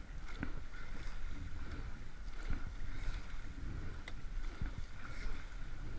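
Rowing shell under way: steady wind on the microphone and water rushing past the hull, with a few sharp knocks from the boat as the crew rows.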